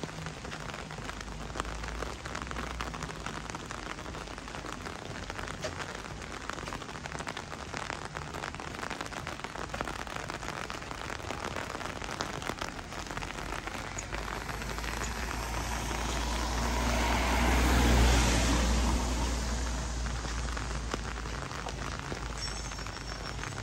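Steady rain with a fine patter of drops. A vehicle passes, swelling to its loudest a little over two-thirds of the way in and then fading.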